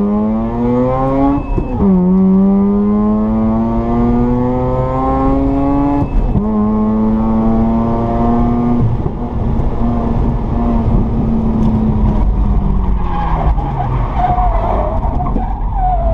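Car engine heard from inside the cabin, accelerating hard and rising in pitch through two upshifts, then easing off with the revs falling. Near the end the tyres squeal and scrub for a few seconds as the car spins.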